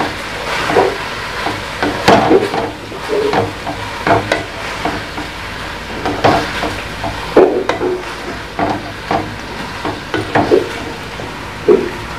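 Wooden spatula stirring and scraping minced meat with tomatoes and spices around a metal wok, in irregular strokes over the sizzle of the frying oil.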